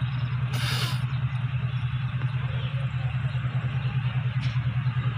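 ZCU-20 diesel locomotive's engine running with a steady low throb that pulses several times a second. A brief hiss comes about half a second in.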